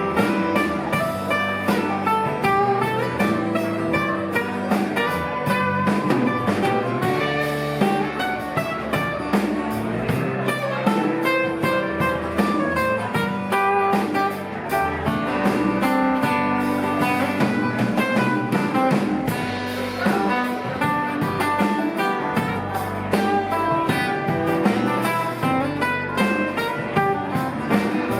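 A live band playing a blues-style instrumental passage, with electric and acoustic guitar to the fore over a drum kit, with steady drum hits throughout.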